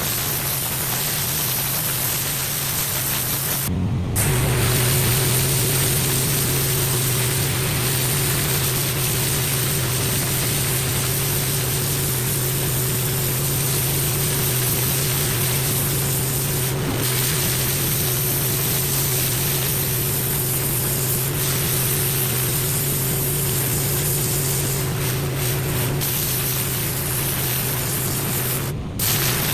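Pressure washer spraying water onto block paving: a steady hiss of spray over the washer's engine and pump running with a steady hum. The sound breaks off for a moment twice, about four seconds in and near the end.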